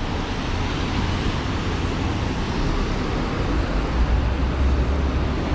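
Steady city street noise: traffic with rain falling, and a low rumble swelling about four seconds in.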